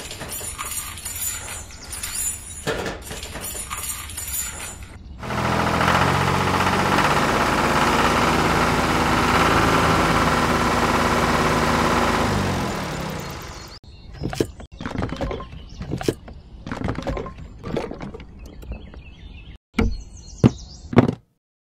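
Small electric motor and gears of a toy tractor running steadily for about eight seconds, then fading out. Before and after it, light clicks and knocks from handling the small model parts.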